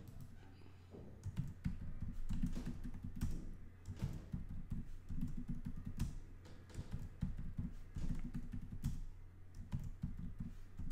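Computer keyboard typing in short runs of keystrokes with brief pauses between them, as passwords are entered one prompt after another.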